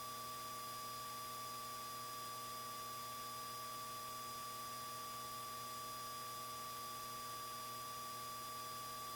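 Steady faint hiss with a few thin steady electrical tones on a light aircraft's intercom audio line between transmissions, with no engine or voices coming through.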